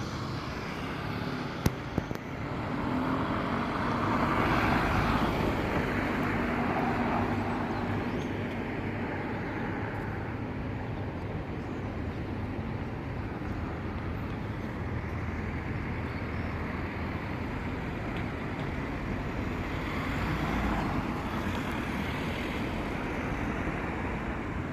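Steady outdoor rumble of a jet airliner overhead mixed with road traffic, swelling twice, once a few seconds in and again near the end. Two sharp clicks come about two seconds in.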